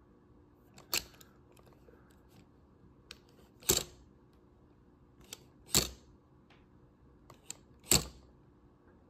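Sharp clicks and knocks from a Cessna 172 fuel level sender being tapped and worked by hand. There are four louder knocks about two seconds apart, with a few fainter clicks between them. The tapping is meant to provoke the sender's intermittent fault, in which it jumps to a high resistance and reads empty when full.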